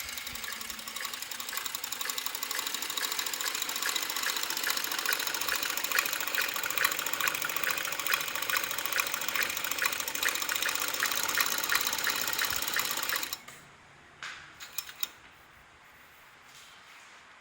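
Zig-zag picot decorative sewing machine running steadily, stitching with a rapid, even rhythm, then stopping abruptly about thirteen seconds in. A few light clicks follow.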